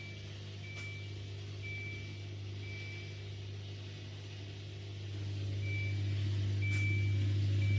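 Countertop dishwasher running: a steady low hum that grows louder about five seconds in, with short high beeps about once a second that pause briefly in the middle.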